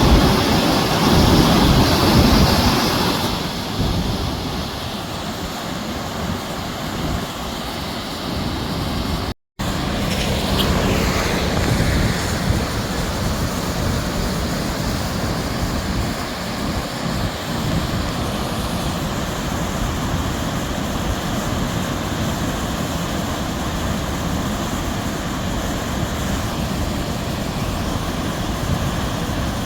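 Heavy rain in a thunderstorm, a steady hiss of downpour and wind that is louder for the first three seconds, with a brief dropout to silence about nine seconds in.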